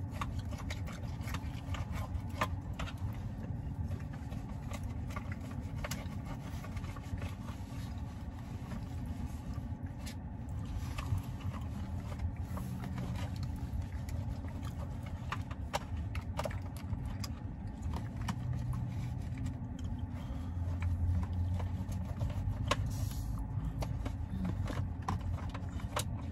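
Steady low rumble inside a car cabin, with scattered light clicks and scrapes of an eating utensil as someone eats.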